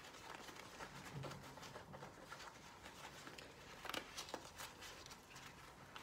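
Faint rustling of a soft structured buckle carrier's fabric and webbing straps being handled and pulled, with a few light clicks and taps about four seconds in.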